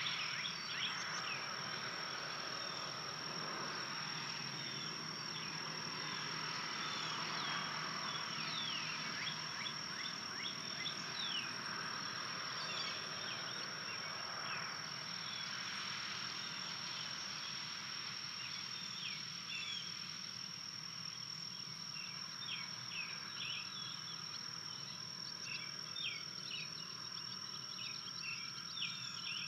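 Dusk outdoor chorus of wild animals: a steady high-pitched trill or whine runs throughout, with many short, quick chirps and calls layered over it.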